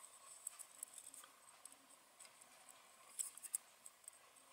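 Faint small clicks and rustles of fingers working stranded hookup wires into a screw terminal block on a small motor controller board, with a brief cluster of ticks about three seconds in.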